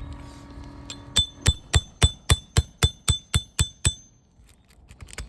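Hammer tapping an asphalt shingle tab in a quick, even series of about eleven light strikes, roughly four a second, each with a short metallic ring; the tapping tests the damaged tab and knocks loose granules.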